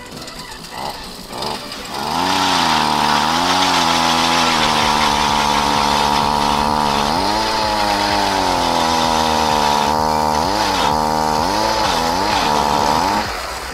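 Power ice auger drilling through lake ice: its motor revs up about two seconds in and runs loud at high speed, its pitch dipping and rising several times, then cuts off near the end.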